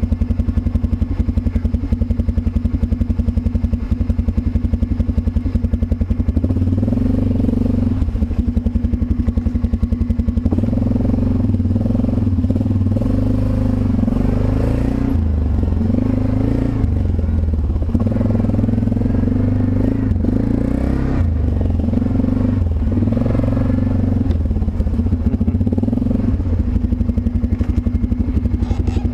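ATV engine idling, then revved up and down unevenly for about twenty seconds from about six seconds in, settling back to idle near the end.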